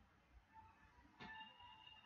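Near silence: faint room noise with a soft thud a little past a second in and a few faint, short high tones.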